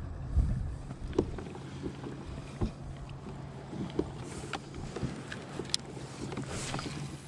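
Fishing kayak on the water: scattered small knocks and clicks against the hull over a steady low hum, with a low rumble at the start.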